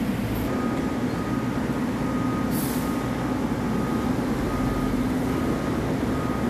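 Hyundai Trago dump truck's diesel engine running steadily while the truck reverses, its reversing alarm beeping at an even pace from about half a second in. A short hiss of air brakes about two and a half seconds in.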